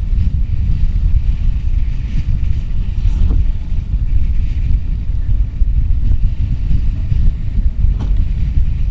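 Storm-force wind buffeting the microphone in a heavy, steady low rumble, over the hiss of breaking seas and water rushing along the hull of a Contessa 35 sailing yacht. Brief knocks come a few seconds in and again near the end.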